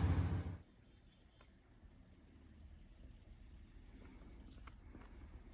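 Small birds giving short, high chirps, faint over quiet outdoor background. A louder low rumble cuts off about half a second in.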